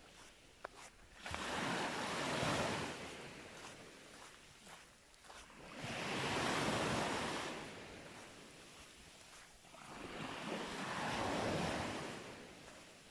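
Surf on the beach: waves breaking and washing up the shore three times, each surge rising and fading over a few seconds, about four to five seconds apart.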